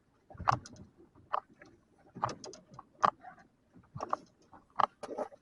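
Irregular mechanical clicks and light knocks, about one or two a second, from fishing gear being handled on a boat.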